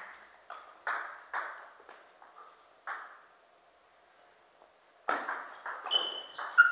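Table tennis ball knocking on bats and table: a few separate clicks in the first three seconds, then a quiet gap, then a quick rally of clicks from about five seconds in. Two short high squeaks come near the end.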